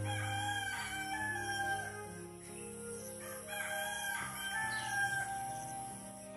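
A rooster crowing twice, each crow lasting over a second, over soft background music.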